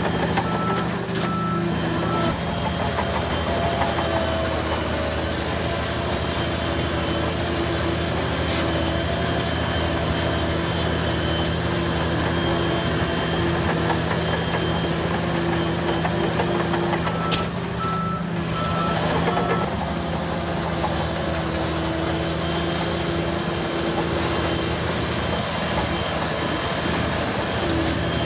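Diesel engines of heavy earthmoving machines running steadily. A backup alarm beeps in two short runs, about a second in and again about 17 seconds in.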